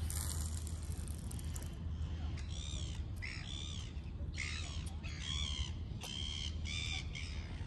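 Line whirring off a spinning reel as the rod is cast. Then a bird gives a series of about ten short calls over a low, steady rumble.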